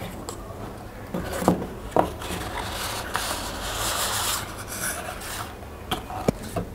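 Cardboard packaging of a Xiaomi Mi Band 4 box being handled: the paperboard inner tray slides out of its sleeve, rubbing and scraping, with a few clicks as the box is handled.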